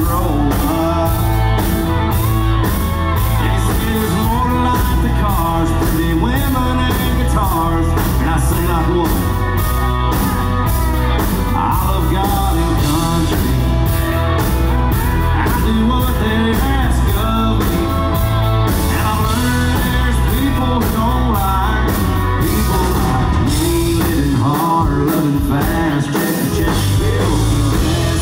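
Live country-rock band playing loudly, with electric guitar, keyboards, bass and drums under a sung lead vocal and steady cymbal strokes. The bass and kick drum drop out briefly near the end.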